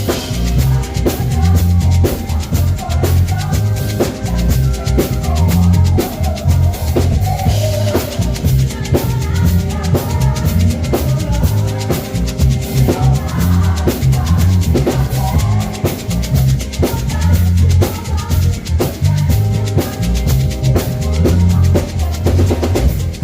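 Instrumental stretch of a song with no singing: a steady drum-kit beat with bass drum and snare over a heavy bass line.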